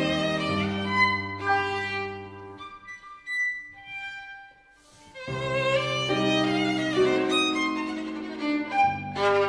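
Background instrumental music. It thins out to a few soft high notes about three seconds in, then swells back in just after five seconds.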